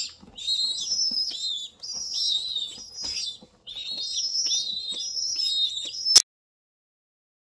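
Young pigeon squabs peeping in runs of high, wavering squeaks. A sharp click about six seconds in, where the sound cuts off suddenly.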